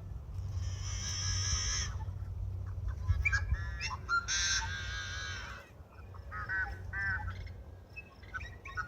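Yellow-headed blackbird singing: two long harsh, grating buzzes of about a second and a half each, with short clicks and chips between them and again near the end.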